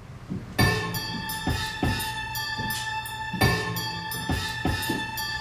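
Music with a drum kit played back through car audio speakers. It starts about half a second in, with repeated drum hits under a held high tone.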